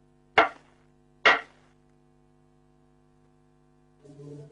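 Two sharp knocks on a door, about a second apart, over a steady low hum.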